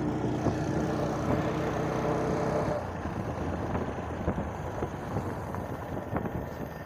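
Motorcycle engine running at a steady pitch while riding. A little under three seconds in, the engine note drops away and gets quieter, leaving a rougher rumble with a few knocks and rattles.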